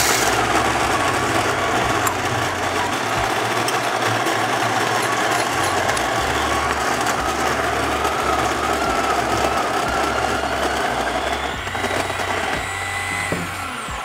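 WPM Welhome Pro ZD-10T conical burr coffee grinder grinding a dose of beans: a loud, steady motor-and-burr whirr with a faint wavering whine. It gets slightly quieter for the last second or so and then stops.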